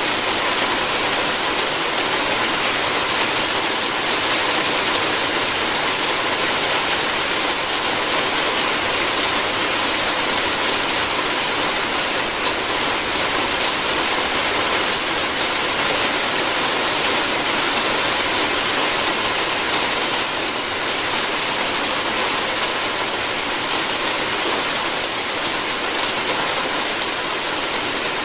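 Steady heavy rain drumming on a roof, a dense even hiss of drops with no let-up.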